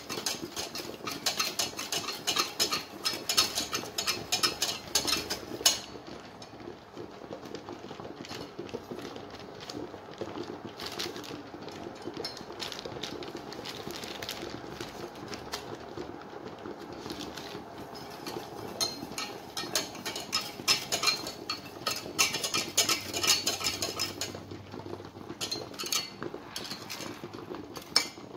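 Wire whisk stirring and clinking against a stainless-steel saucepan, mixing raspberry Lamington dip powder into boiling water to make the dip sauce. Fast clinking runs through the first few seconds and again in the last third, with softer stirring between.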